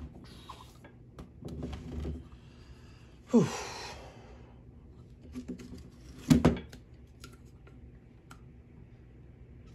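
A bowling ball being handled and set on a countertop: a loud scrape that drops in pitch about three seconds in, then a heavy knock a few seconds later, with light clicks and rustles in between.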